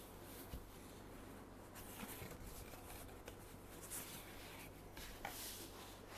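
Gloved hands handling and unfolding a cardboard perfume box: faint rustling and rubbing of paperboard, with a few soft taps.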